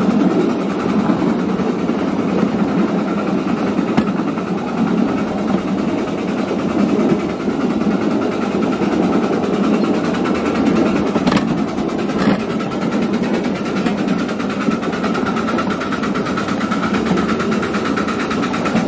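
Ride-on miniature railway train running along its track: a steady rumble and clatter of the wheels and running gear on the rails. Two sharp clicks about a second apart come a little past the middle.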